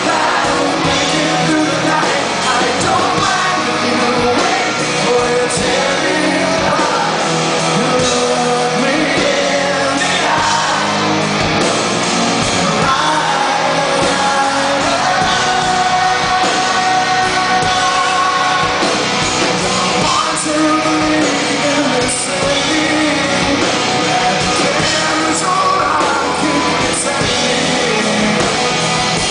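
Live rock band playing, with singing over the instruments.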